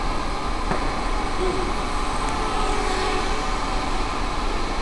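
Blade Nano QX racing quadcopters' small motors and propellers buzzing steadily in flight, over a steady background hiss.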